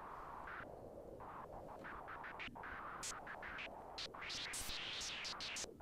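Octave-Plateau Kitten II analogue synthesizer making filtered noise through its resonant low-pass filter, with the oscillator's audio switched off and noise mixed in. It comes as a quiet hiss with short bright bursts, which come more often and sound brighter in the second half.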